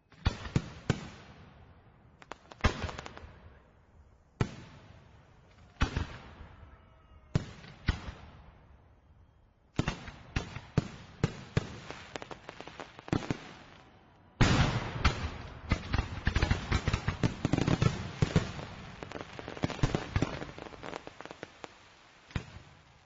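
Fireworks exploding: single bangs, each with a fading tail, about every second and a half at first, then a faster string of bangs that builds into a dense, continuous barrage about two-thirds of the way through and thins out near the end.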